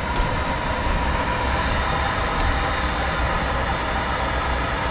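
Steady engine and road noise inside the cab of an old one-ton van creeping slowly forward into shallow floodwater.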